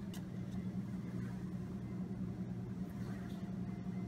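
Steady low mechanical hum of laboratory equipment and ventilation, with a faint click near the start.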